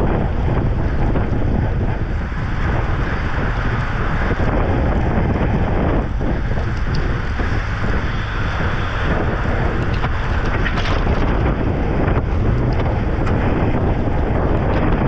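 Steady wind rushing and buffeting over the microphone of a camera on a moving racing bicycle.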